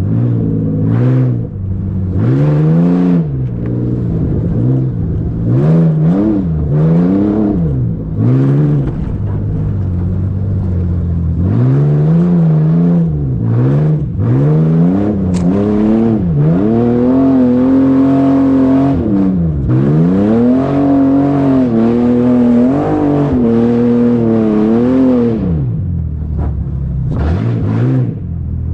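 Motor vehicle engine revving up and falling back again and again, its pitch climbing and dropping every second or two, with a longer high-revving stretch around the middle.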